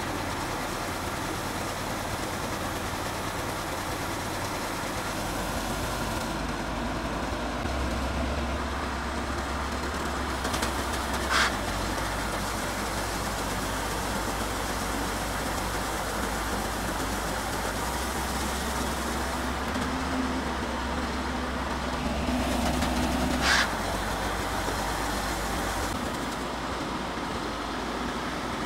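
Tracked rice combine harvester's engine running steadily while its unloading auger pours threshed rice into a sack, a continuous hissing machine noise over a low engine hum that shifts in level a few times. A short sharp click sounds twice.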